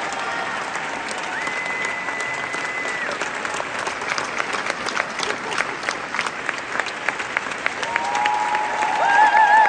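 Large theatre audience applauding, with long high-pitched cheers held over the clapping. Applause and cheering swell near the end as the cast bows.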